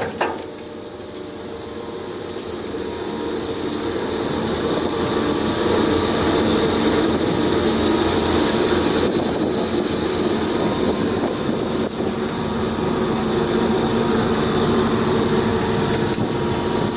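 Balduf PZ 63-1 wood chipper running, a steady mechanical drone that builds up over the first few seconds and then holds, with a short knock at the very start.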